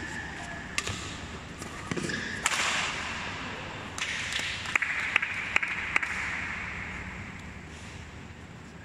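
Badminton rally: sharp cracks of rackets hitting the shuttlecock in the first two seconds, then a rush of noise and a run of quick sharp smacks from about four to six seconds in, dying down toward the end.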